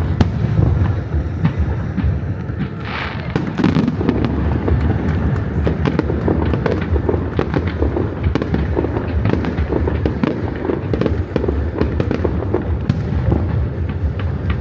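Fireworks display: shells bursting in rapid, continuous crackles and pops over low booms, with a brief hiss about three seconds in.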